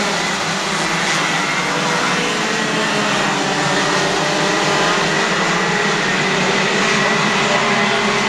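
Several racing kart engines running at once, their pitches overlapping and shifting slightly as they go, in a steady, loud drone.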